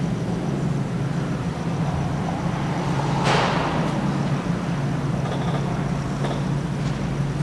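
Church room tone: a steady low hum, with one short, noisy burst about three seconds in.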